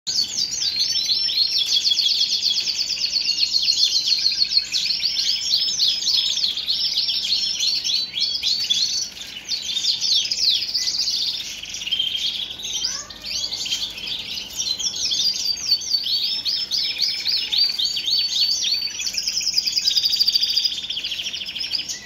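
Male Shirazi canary singing a continuous full song of fast trills and rolls, the song of a male in breeding condition and ready to mate.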